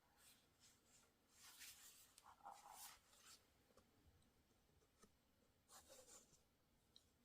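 Faint rustling and scraping of packaging being handled while a boxed Blu-ray set is unpacked, in a few short bouts with small clicks between them; the longest runs from about one and a half to three and a half seconds in.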